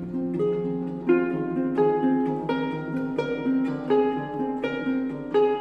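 Solo concert harp played: plucked notes ringing over one another, with a fresh accented pluck about every two-thirds of a second.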